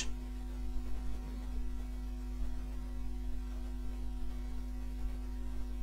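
Steady electrical mains hum, a low buzz with a few fixed tones and no other sound standing out.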